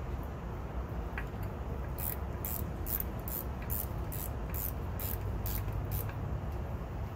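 A run of about ten short, high hissing strokes, roughly two and a half a second, from about two to six seconds in, as hands work over the outboard's midsection housing. A steady low rumble runs underneath.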